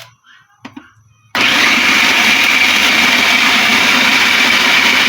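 A few light knocks, then about a second in an electric food chopper switches on abruptly and runs steadily at full speed, mincing boneless chicken into keema.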